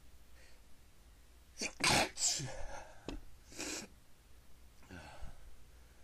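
A person sneezing: one loud, sharp sneeze about two seconds in, then a second, shorter sneeze about a second and a half later.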